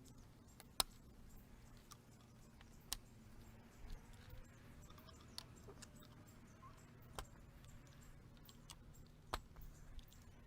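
Near silence: a faint low hum with a handful of short, sharp clicks at uneven intervals.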